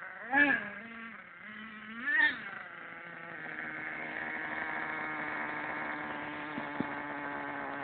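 HPI Savage 25 monster truck's .25-size two-stroke nitro engine, blipped twice so the pitch briefly rises and falls, then idling steadily. A single sharp click near the end.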